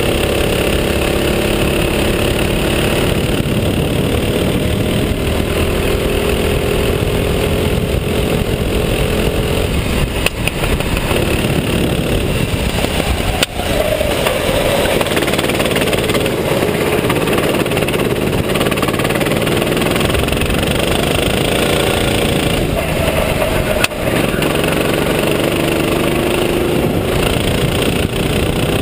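RT8 racing kart's engine running at speed on the track, its pitch rising and falling as the driver accelerates and lifts off through the corners, with a few short dips in level.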